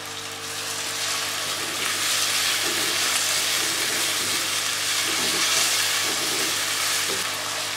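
Diced raw potatoes sizzling in hot oil in a nonstick kadhai as they are stirred with a silicone spatula. The sizzle grows louder about a second and a half in and eases a little near the end.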